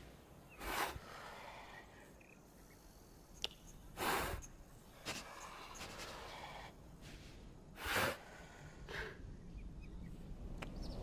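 Gorilla huffing: three loud, short, breathy exhalations about a second, four seconds and eight seconds in, with softer huffs between them.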